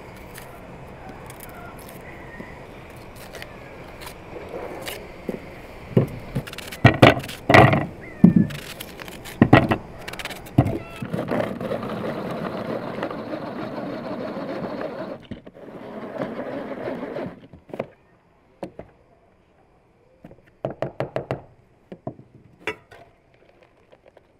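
Red pull-cord manual food chopper in use on onions. First come several loud plastic knocks and clunks. Then a few seconds of steady spinning noise from the blades as the cord is pulled, and near the end a quick run of taps as the chopped onion is knocked out of the plastic bowl.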